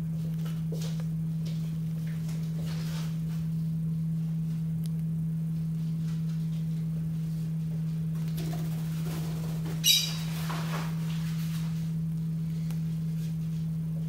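A lovebird gives one short, high chirp about ten seconds in, over a steady low hum.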